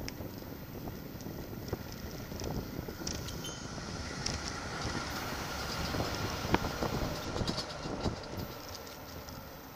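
Wind and road noise on a bike-mounted camera's microphone while cycling: a dense rumble with scattered sharp knocks and rattles from the bike going over rough pavement, the loudest knock about two-thirds of the way in. The noise swells in the middle and eases off near the end.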